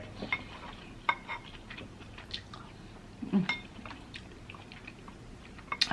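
Eating sounds at close range: soft chewing with scattered small clicks and clinks of utensils against dishes, and a brief low vocal sound about three and a half seconds in.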